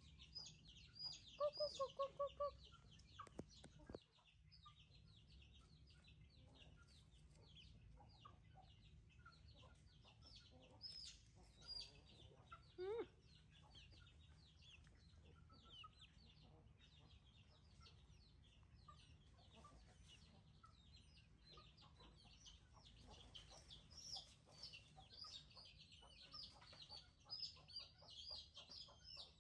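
A hen clucking: a quick run of short, evenly spaced notes about a second in, the loudest thing here. Faint high-pitched chirps come and go throughout.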